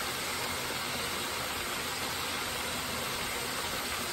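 Hot oil sizzling in a deep fryer with a steady, even hiss.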